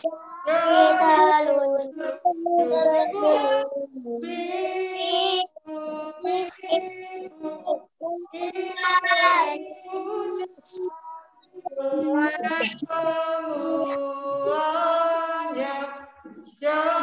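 Singing of a children's finger-play action song, in high, childlike voices, in phrases of a second or two with short breaks between them.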